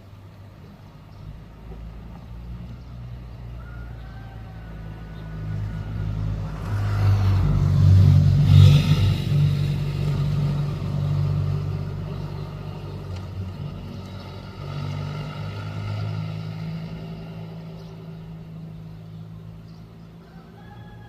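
A motor vehicle's engine drawing near, loudest about eight seconds in, then slowly fading away.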